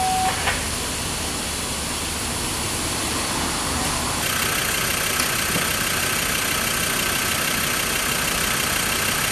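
Fire engine idling steadily. About four seconds in the sound shifts and a steady hiss joins.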